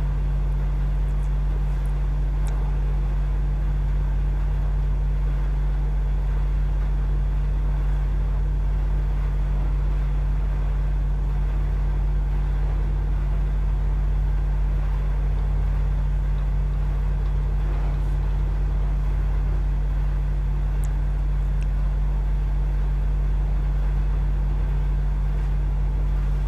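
A steady low hum with a faint hiss above it, unchanging, and a few faint ticks now and then.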